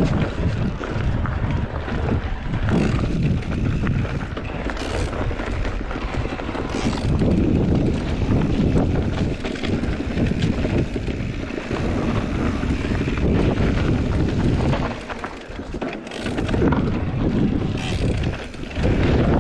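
Wind buffeting the microphone of a camera riding on a moving bicycle: a loud, rumbling rush of noise that drops away briefly twice near the end.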